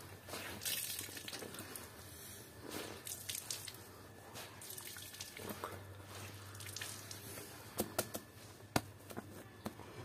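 A soaked plush stuffed toy squeezed and wrung out by hand over a wet tile floor: soft squelching and water dripping and splashing, with a few sharp ticks near the end.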